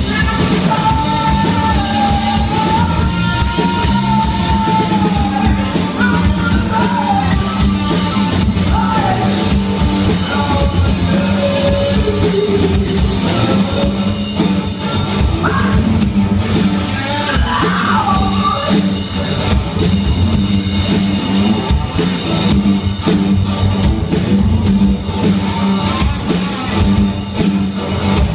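Live rock band: a woman singing lead over distorted electric guitars and a drum kit. The singing drops out about two-thirds of the way through while the guitars and drums carry on.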